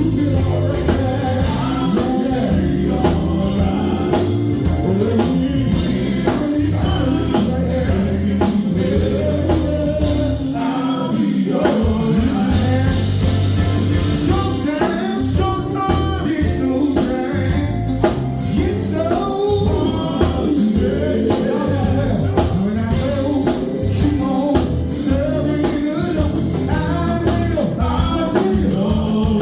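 Gospel group singing over instrumental backing with a steady bass line.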